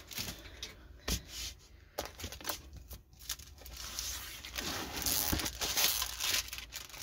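A diamond painting canvas with its plastic cover film crinkling and rustling as it is handled and turned over. A few light taps and clicks at first, then a denser, louder crinkle from about four seconds in.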